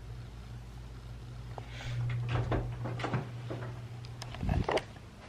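A series of short household knocks and clicks, like a door or cupboard being handled, the loudest a little before the end, over a steady low hum.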